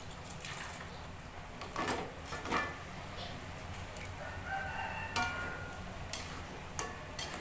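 Metal spatula clacking and scraping against a wok as fried chicken pieces are turned in sauce, a handful of sharp knocks over a steady low hiss of frying. A bird calls in the background about halfway through.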